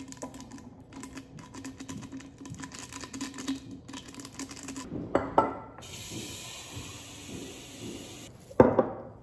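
A paper packet of flower food crackling as its powder is shaken into a glass mason jar, with a couple of knocks about five seconds in. Then a kitchen tap runs steadily for about three seconds as water fills the jar, and a loud knock comes near the end.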